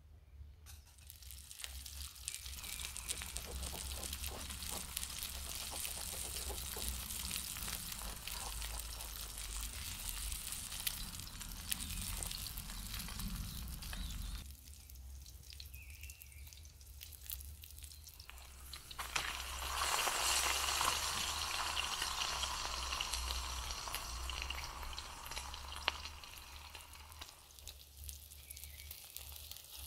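Food sizzling and crackling in a small frying pan over an X-Boil camping stove. A steady sizzle runs for the first half, drops away for a few seconds around the middle, then returns louder from about twenty seconds in and fades near the end.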